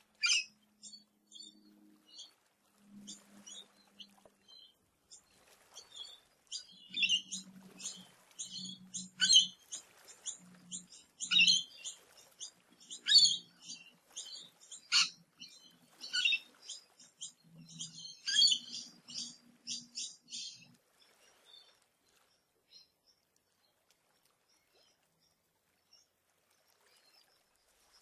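Australian bush birds calling in a dawn chorus: many short, sharp chirps and high notes from several birds, busiest in the middle, with lower pulsing notes underneath. The calling dies away about three quarters of the way through.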